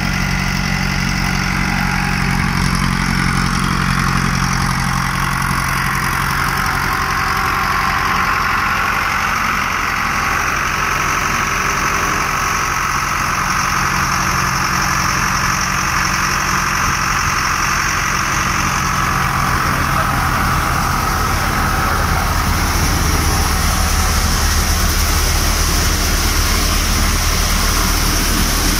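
Mahindra tractor's diesel engine running steadily, driving a Jangeer mini combine thresher that is threshing grain, with the thresher's steady whirr over the engine.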